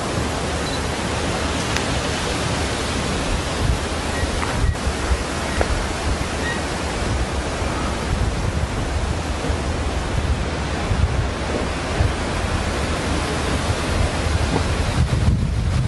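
Steady, even hiss of noise with no clear source, broken by a few faint ticks.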